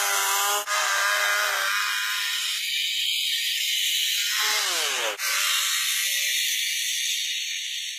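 Two-stroke chainsaw engine running at high revs, with a steady high hiss over it. About halfway through its pitch drops sharply, and the sound cuts out for a moment twice.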